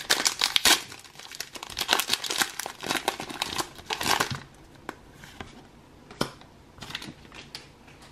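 Foil wrapper of a Pokémon trading-card booster pack being torn open and crinkled as the cards are pulled out, dense crackling for about four seconds. After that, only a few light clicks as the card stack is handled.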